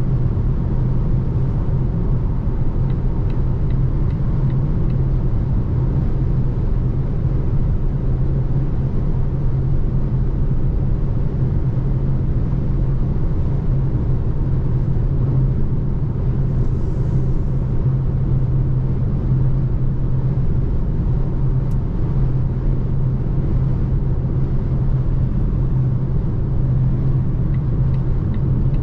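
Steady road and tyre rumble inside the cabin of a Volvo C40 Recharge electric car driving along, with a constant low droning note and no engine sound.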